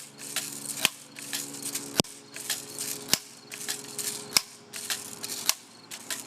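Crosman 760 Pumpmaster multi-pump air rifle being pumped up: a sharp clack about once a second as the pump arm closes, with a rushing noise on each stroke between the clacks. It is being pumped toward ten pumps, its highest-power setting.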